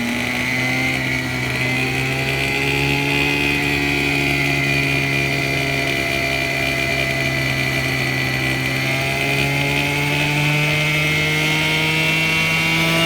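Two-stroke 27cc petrol engine of a radio-controlled helicopter running steadily at a high, buzzing pitch, which rises slightly near the end.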